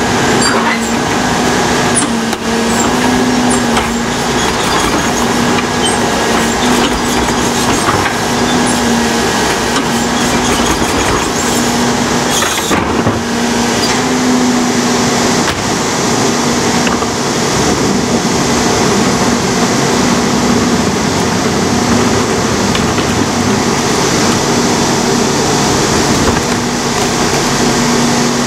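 Rear-loader garbage truck running with its hydraulics working as the cart tipper lifts and dumps carts into the hopper: a steady mechanical din with a hum that comes and goes, and a few sharp knocks of carts and trash against the hopper.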